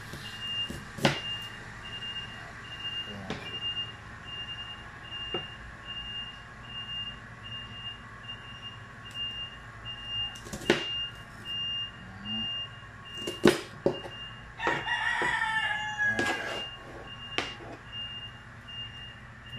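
A kitchen knife slicing through a red onion and knocking on a plastic cutting board, a sharp knock every few seconds. A rooster crows once, about three-quarters of the way in. A high electronic beep repeats about twice a second throughout.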